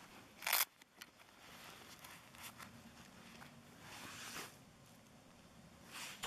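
Handling noise from gloved hands and clothing as a small digital angle gauge is handled: a short, loud rasp, like a zip or a quick rip, about half a second in, then softer rustles and rubs a few times.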